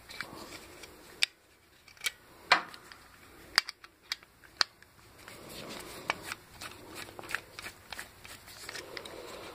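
Screwdriver working screws loose from a steel mounting plate: scattered sharp metallic clicks and scrapes of the blade and screws against the plate, the loudest about two and a half seconds in.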